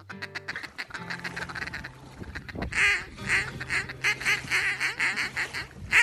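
Duck quacking: a quieter run of quick chattering notes, then from about three seconds in a string of loud quacks, about three a second.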